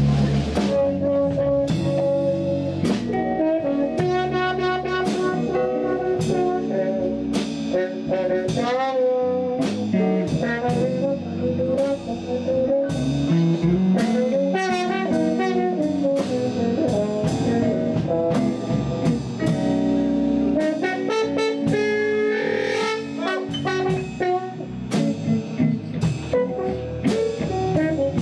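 Trombone solo played with a hand-held plunger mute over the bell, backed by a jazz-blues band of keyboard, bass guitar and drum kit. The trombone slides up and down in pitch in places over a steady drum beat.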